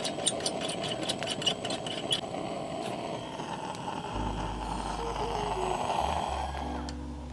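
Wood fire burning with a steady rushing sound and sharp crackles during the first two seconds. About four seconds in, background music with a low bass note and a simple stepped melody comes in.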